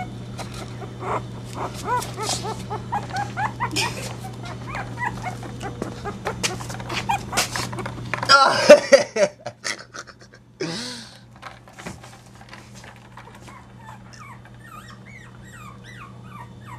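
Chihuahua puppies whimpering and yipping in many short, high, rising-and-falling cries. About eight seconds in there is a loud burst of noise, then another shorter one, and fainter whimpers follow.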